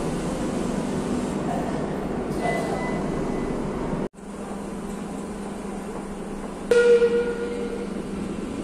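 Madrid Metro Serie 5500 train running along the platform and slowing to a stop with a steady rumble; the sound breaks off abruptly about four seconds in. A standing train's steady hum follows, and near the end a loud electronic warning tone sounds for about a second, typical of the door-closing signal.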